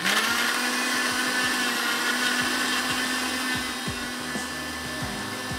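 Electric blender with a glass jug starts abruptly and runs at a steady motor pitch, pureeing chopped onion with a little water into a paste. It eases slightly in loudness toward the end.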